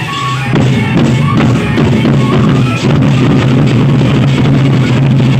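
Loud gendang beleq ensemble: large Sasak barrel drums beaten with sticks in a dense, driving rhythm, with a steady low resonance underneath.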